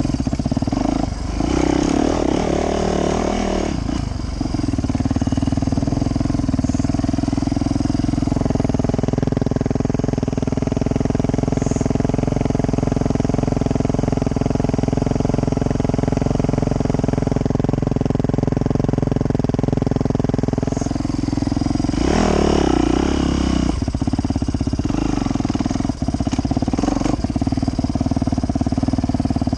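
Yamaha YZ450F's single-cylinder four-stroke engine, revving in bursts about two seconds in and again around twenty-two seconds in, and ticking over steadily in between.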